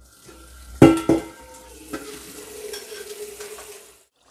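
A metal spatula strikes a steel wok twice about a second in, the metal ringing briefly, then stirs in it over a steady sizzle of food frying in hot oil.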